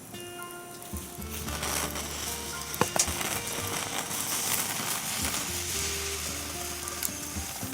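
Sizzling and crackling over a wood cooking fire: an even hiss that swells about a second and a half in, with two sharp cracks about three seconds in. Quiet background music plays along.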